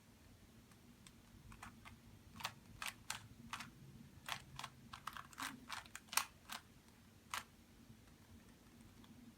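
Plastic Rubik's cube being turned by hand: a quick, irregular run of sharp clicks, about fifteen turns, from about a second and a half in until about seven and a half seconds in.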